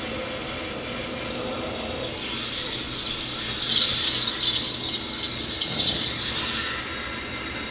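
A cat's jingle ball rattling its bell in several quick, bright bursts as the cat bats and rolls with it, loudest a little past the middle, over a steady low background hiss.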